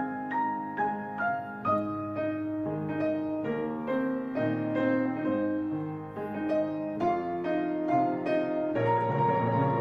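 Piano music: a melody of struck notes, a couple to the second, ringing over low held notes.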